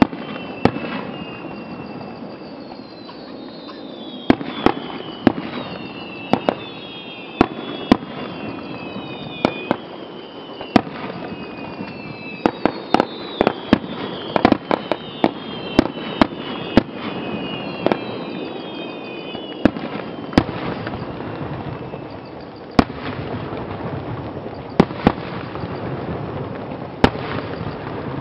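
Aerial firework shells bursting: dozens of sharp bangs at irregular intervals, some in quick runs, over a steady background hiss. Through the first two-thirds, a string of high whistles, each falling in pitch, repeats every second or two.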